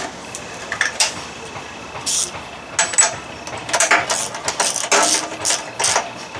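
Ratchet wrench clicking in several short bursts as a spark plug is screwed back into a small generator engine.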